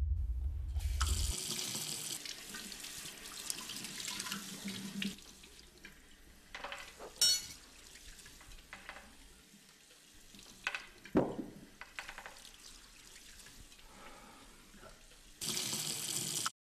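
Kitchen faucet running into a sink, a steady hiss of water for the first few seconds. A few sharp clinks and a thump follow. The tap runs again near the end and cuts off suddenly.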